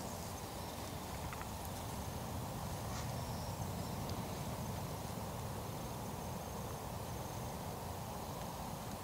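Steady outdoor background noise across an open field, even in level throughout, with faint thin high-pitched tones heard a few times.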